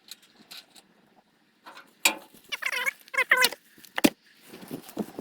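Short wavering animal cries, with a few sharp knocks.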